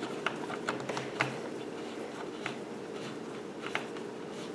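A few light, irregular clicks and scrapes of an Allen key turning a small screw into the 3D printer's LCD screen mount.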